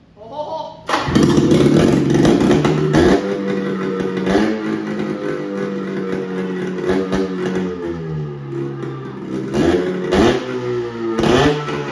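1978 Polaris Cobra 440 snowmobile's two-stroke engine catching about a second in and running, its pitch rising and falling several times as the throttle is blipped. This is its first start after the points were filed and the engine was primed.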